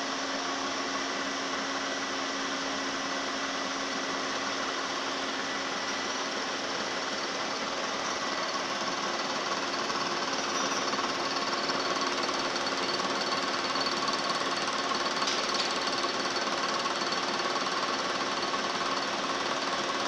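Milling machine running steadily, cutting the helical flutes of a spiral reamer in Р6М5 high-speed steel; the cut gets a little louder about halfway through.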